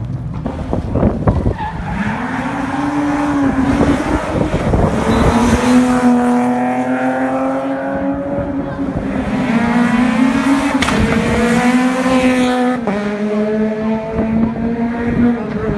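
Rally car engine held at high revs, its note rising over the first few seconds and then staying steady for several seconds, with a sudden drop in pitch at a gear change about thirteen seconds in. A burst of sharp crackles sounds in the first couple of seconds.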